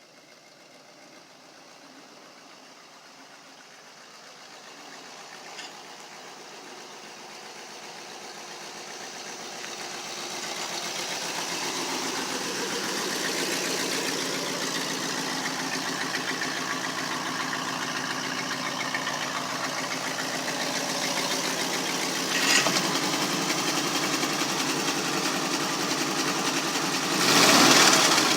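An engine running steadily, growing louder over the first dozen seconds and then holding level. A single sharp knock comes about two-thirds of the way in, and a louder burst of noise comes near the end.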